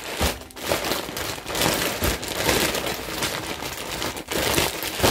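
Clear plastic mushroom grow bag crinkling and rustling as gloved hands squeeze and knead it, the grain substrate inside shifting. This is the break-and-shake stage, breaking up clumps of colonized mycelium.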